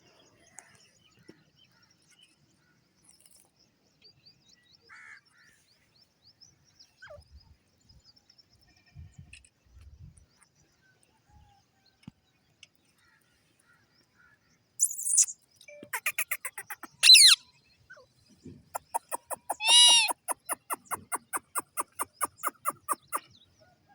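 Green parrots calling. Faint scattered sounds at first, then loud calls about fifteen seconds in, followed by a long run of rapid repeated calls, about four a second.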